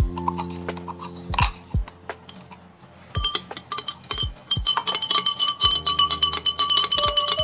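A long metal spoon stirring milk in a glass measuring beaker, clinking rapidly against the glass from about three seconds in so that the glass rings, over background music.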